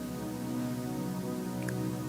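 Soft background music of sustained, held chords, such as a keyboard pad under prayer.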